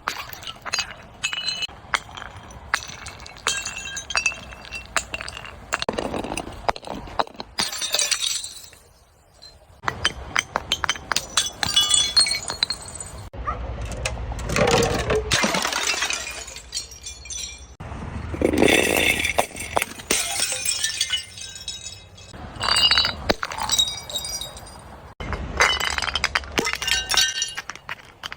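Glass being broken and crushed: repeated cracks and crunches, with shards clinking and ringing after the impacts. The sound comes in bursts, with a brief lull about nine seconds in.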